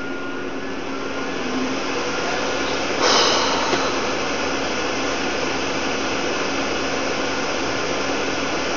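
A steady, fairly loud hiss with a faint low hum, with a louder rush of noise about three seconds in that lasts under a second.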